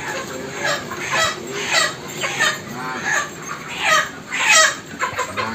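Chickens clucking and squawking: a run of short, repeated calls, each falling in pitch.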